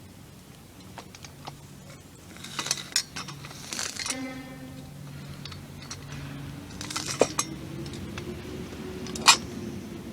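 Metal swing-set parts clinking and knocking together as they are handled and fitted, with a short metallic ring after a knock about four seconds in and a sharp clank near the end.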